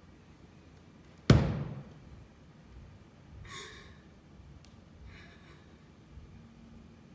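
A single sharp thud that rings out briefly in a large, hard-floored room, followed by two breathy sighs a couple of seconds apart.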